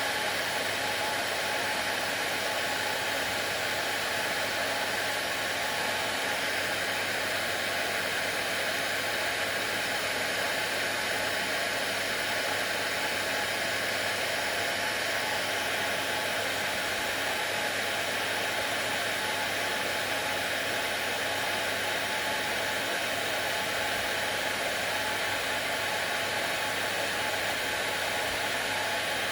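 Hair dryer running steadily: an even blowing rush with a faint constant hum, played as a soothing noise to settle a crying baby.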